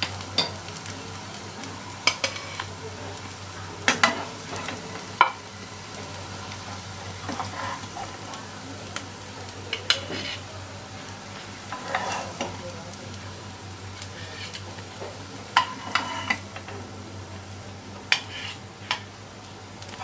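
Oil sizzling in a pan of shallow-frying potato tikkis, with sharp clicks and scrapes as a metal spatula and spoon lift the patties out against the pan and onto a plate, a dozen or so times.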